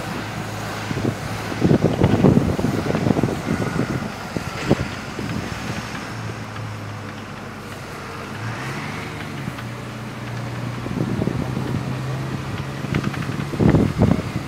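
Open-top sightseeing bus engine running steadily as it drives, its low note stepping up in pitch about eight seconds in. Wind buffets the microphone in gusts, loudest near the end.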